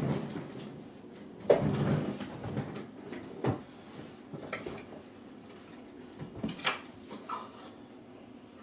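A cardboard graphics-card box being handled and set against a wooden table: a scrape about a second and a half in, then scattered light knocks and clicks.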